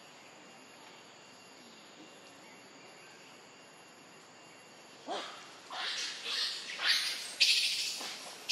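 Plastic bag rustling in loud crackly bursts, starting about five seconds in, as food is pulled out of it. A short rising-and-falling animal cry comes right at the first burst.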